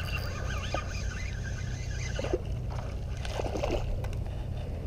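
Spinning reel whirring as it is wound in on a hooked Australian salmon, then water splashing and sloshing about two seconds in as the fish thrashes at the surface near the jetty. Low wind rumble on the microphone throughout.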